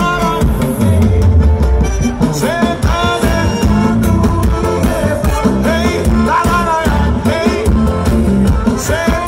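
Live forró band playing loudly, a lead voice singing the melody over heavy bass and steady drums.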